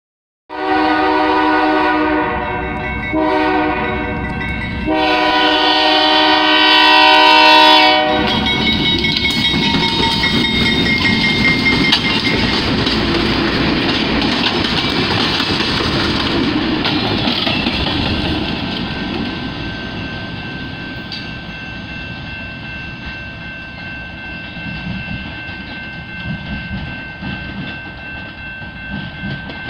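BNSF C44-9W diesel locomotive's air horn sounding three blasts, the last held longest and loudest until about eight seconds in. Then the locomotive and two track-inspection cars roll past with wheels clattering over the rails and a fast-ringing bell, the sound fading over the last ten seconds as the train moves off.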